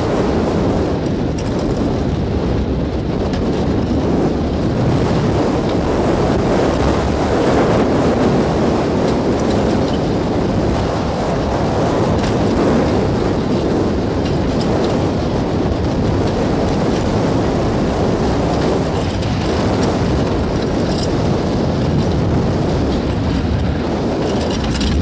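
Steel suspended roller coaster in motion: the train rumbling along its track with wind rushing over the microphone, a loud, steady noise.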